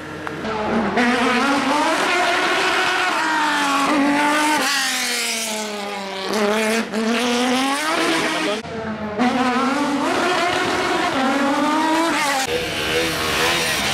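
Open-wheel formula race car engine revving hard, its pitch climbing and falling again and again, with tyre squeal from wheelspin as the car slides and spins. The engine sound breaks off briefly a little past halfway, then the revving and squeal resume.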